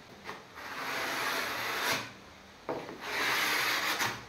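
A homemade card scraper, cut from a piece of saw disc, scraped along the wooden runner of a table-saw crosscut sled in two long strokes of about a second and a half each. It is shaving down the spots where the runner was catching in the saw's guide slot.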